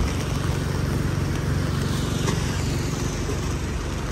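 Steady noise of a rainy city street: traffic rumbling on wet roads with the hiss of rain.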